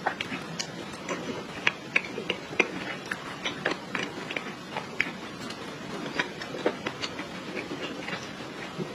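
Close-miked eating sounds: irregular crisp clicks and crunches of chewing, several a second.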